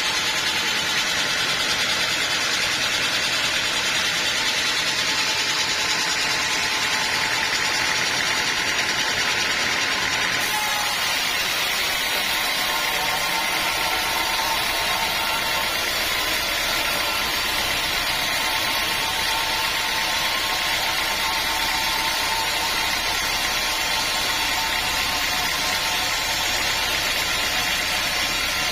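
Sawmill machinery running steadily without a break, with a change in its tone about ten seconds in.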